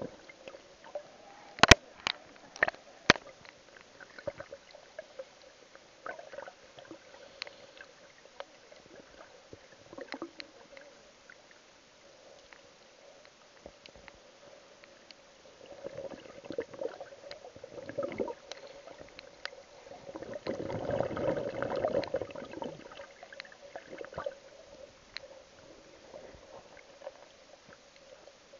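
Muffled underwater sound picked up by a camera in its waterproof housing: water gurgling and sloshing over a faint steady hum. Several sharp knocks come in the first few seconds, and a louder rush of churning water swells and fades about two-thirds through.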